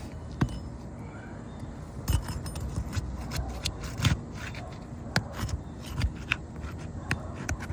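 Irregular sharp clicks and knocks with some scraping, from hand tools working on asphalt roof shingles, most of them from about two seconds in.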